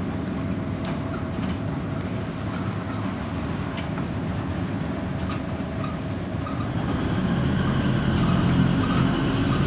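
Volvo B10M bus's underfloor six-cylinder diesel engine running, with scattered small rattles and clicks. About seven seconds in the engine note rises and gets louder as it pulls harder.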